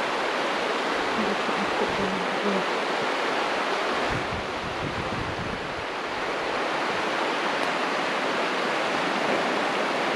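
A shallow, wide river rushing steadily, a constant even sound of running water.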